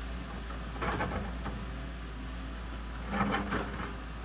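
A Doosan DX140W wheeled excavator's diesel engine runs with a steady low drone while the bucket digs into soil and rock on the road cut. Two short bursts of scraping and crunching come about a second in and again around three seconds in.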